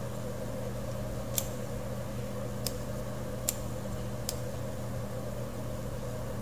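Computer mouse clicking four times, roughly a second apart, over a steady low electrical hum and background noise.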